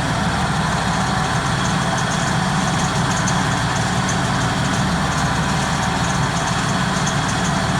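Massey Ferguson 7614 tractor's diesel engine idling steadily, with an even low firing pulse.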